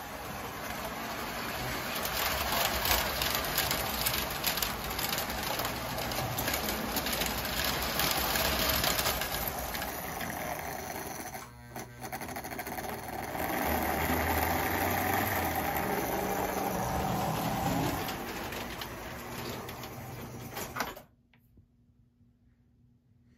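Lionel Standard Gauge 390E toy steam locomotive running on tinplate track with a train of freight cars: the electric motor and gears whirring and the wheels clattering over the rails, with many fine clicks. The sound stops abruptly near the end.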